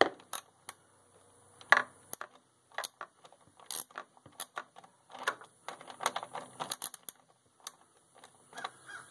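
Socket ratchet clicking in short, irregular spells as a nut is tightened, with the odd metallic clink of the socket and wrench.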